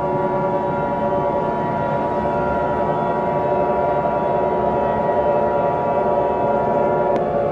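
Emergency alert attention tone: a single steady high tone held for about seven seconds, cutting off with a click near the end. Under it runs a steady drone of many layered tones.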